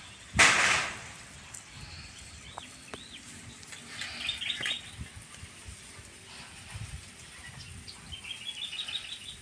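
Small birds chirping, with a few arched notes and two quick runs of rapid high notes, the second near the end. About half a second in there is a brief, loud rush of hissing noise.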